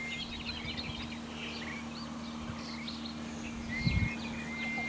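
Small birds chirping with short high calls and a few brief steady whistles, over the steady buzz of a fly close by. A brief low bump comes about four seconds in.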